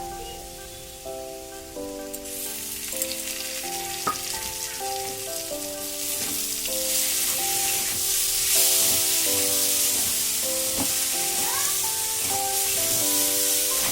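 Food frying in hot oil in a pan: a sizzle that sets in about two seconds in and grows louder, with a few sharp clicks.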